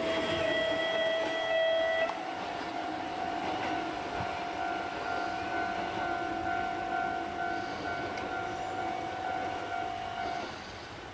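Japanese level crossing warning bell ringing steadily over the rumble of a passing Kotoden electric train. The bell changes pitch abruptly about two seconds in and stops near the end.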